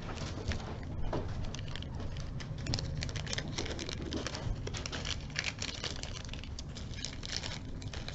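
Small numbered plastic bags of beads being handled, with light, irregular clicks and rustles of bead strands against each other and the bag, over a steady low hum.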